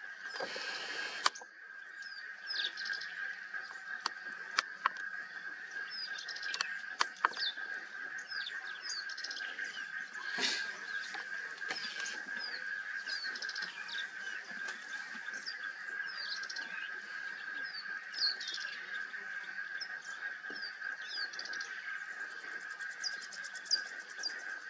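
Birds chirping in short repeated calls over a steady high-pitched drone, with a brief rush of noise at the very start and a few sharp clicks in the first several seconds.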